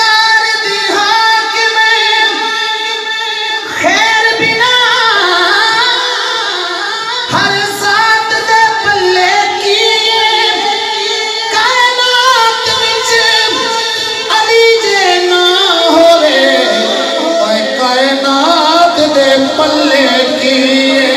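A man singing a Punjabi naat into a microphone, drawing out long, high held notes that slide and waver between pitches.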